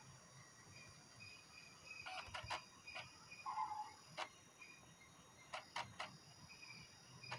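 A handful of faint, sharp clicks, some in quick pairs like double-clicks, from the laptop's pointer being clicked on files.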